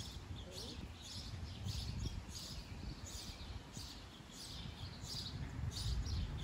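A songbird repeating one short, high, falling chirp over and over at an even pace, about one and a half to two a second, over a low rumble of wind on the microphone.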